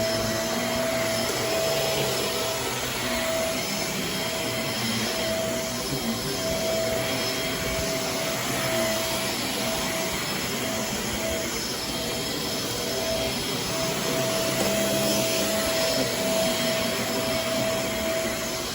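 Shark Navigator Swivel upright vacuum cleaner running on a rug: a steady motor whine over the rush of suction, the whine breaking up now and then.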